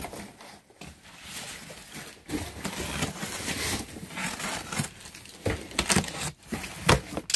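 Box cutter slitting packing tape on a cardboard box, with cardboard scraping and rustling. A few sharp knocks come near the end.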